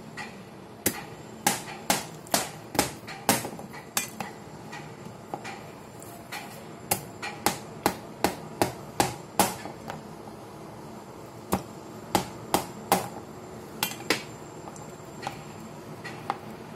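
An irregular series of sharp knocks, a hard object striking a hard surface, in quick runs of several knocks a second with pauses between the runs.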